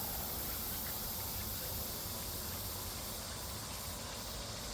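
A steady high hiss over a low rumble, with a faint pulsing added in the hiss from about three seconds in.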